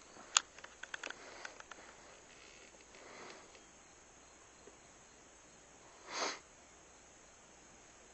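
A sharp click followed by a quick run of lighter clicks, then a single short sniff about six seconds in.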